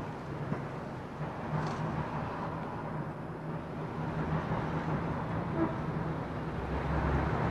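Steady outdoor background of distant traffic: a low, even rumble and hiss that swells a little near the end.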